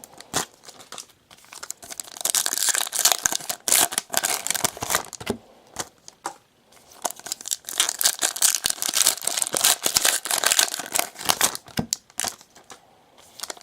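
Foil trading-card pack wrappers crinkling and tearing open, in bouts with short pauses between them.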